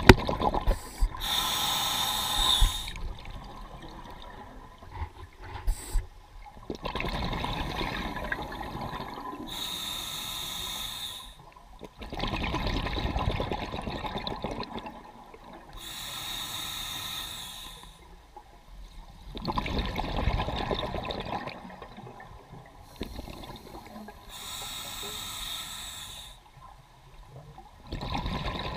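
Scuba diver breathing through a regulator underwater. A hissing inhale through the demand valve is followed by a longer rush of exhaled bubbles, and the cycle repeats about every seven seconds.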